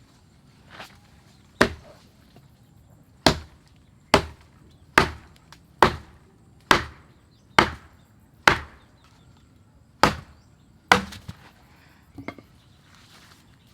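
A tool chopping in a steady rhythm: about ten sharp strikes, a little under a second apart, with a short break near the end before two more strikes and a weak last one.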